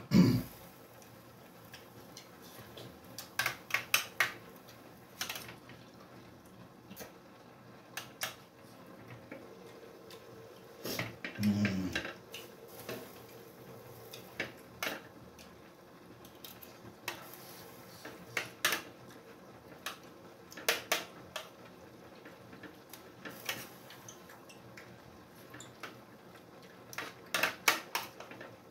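Metal spoon clinking and scraping on a plate, in scattered sharp clicks that come in short runs every few seconds.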